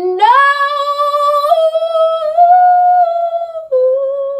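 A teenage girl singing one long, wordless held note to show she can hit every note. The note climbs in small steps, breaks briefly near the end, then resumes a little lower.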